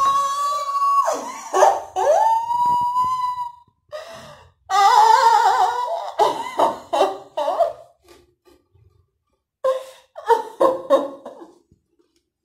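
A woman's high-pitched wordless voice: a long held note that bends up and down in the first few seconds, then short excited vocal bursts.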